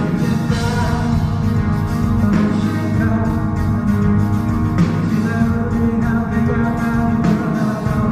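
Live rock band playing a song, with guitar, drums and a male voice singing over it.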